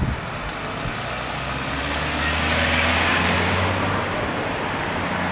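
Street traffic: a car's engine running with a steady low hum, and road noise that swells and fades around the middle.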